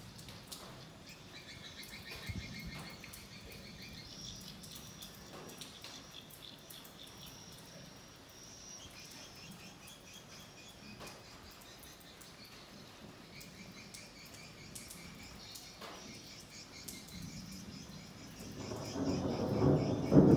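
Faint, high-pitched chirping trills repeating throughout in the background, with a few faint clicks. A louder burst of lower-pitched sound comes in near the end.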